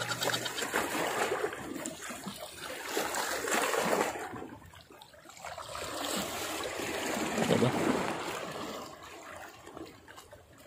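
Sea water washing and splashing against the rocks of a breakwater, swelling and fading in surges a few seconds apart.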